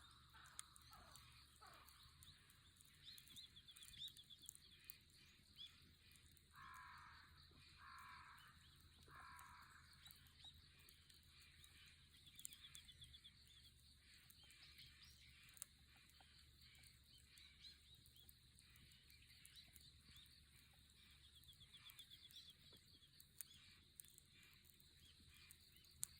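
Quiet early-morning outdoor ambience: a distant bird calls three times in a row about seven to nine seconds in, over faint high insect trills and scattered small crackles from a wood campfire.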